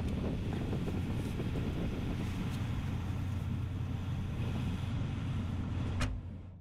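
Vehicle engine idling with a steady low hum, heard from inside the cab. A car door shuts with a single knock about six seconds in, and then the sound fades out.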